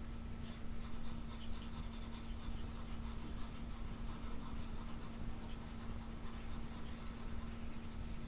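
Stylus scratching and rubbing in quick, irregular strokes across a tablet surface as handwritten digital ink is erased, over a steady low hum.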